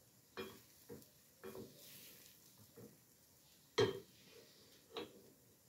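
Wooden spoon stirring egg in a coated cooking pot, knocking and scraping against the pot's side and bottom in about six irregular taps, the loudest a little past halfway.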